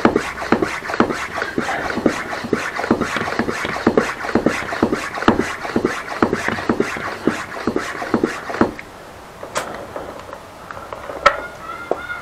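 Bicycle pump inflating a freshly fitted bicycle tyre: quick rhythmic strokes, about two or three a second, that stop about three-quarters of the way through. A couple of clicks follow, and a cat meows right at the end.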